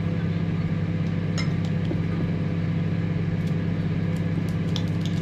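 Steady low mechanical hum, like a household appliance or fan motor running, with a few faint light clicks over it.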